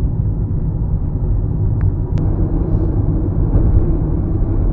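Steady low rumble of a car being driven, engine and tyre-on-road noise heard from inside the cabin. A couple of faint clicks about two seconds in.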